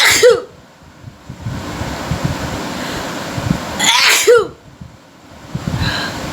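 A person sneezes twice, once right at the start and again about four seconds later. Each sneeze is a sharp burst of breath that ends in a short falling voiced 'choo'.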